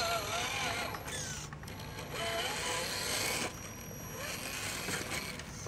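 Axial SCX10 radio-controlled rock crawler's electric motor and geared drivetrain whining as it crawls slowly over rock. The whine glides up and down in pitch as the throttle is worked.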